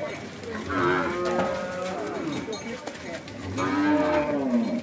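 Cattle mooing twice: one long call about a second in and a second, louder call near the end, each rising and falling in pitch.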